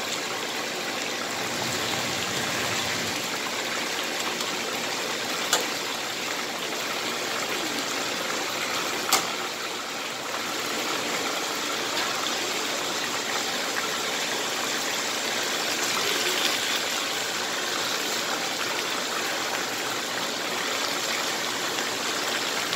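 Chicken pieces sizzling in hot oil in a large nonstick frying pan, a steady hiss. Two sharp clicks of metal tongs against the pan come about a quarter and about two-fifths of the way through.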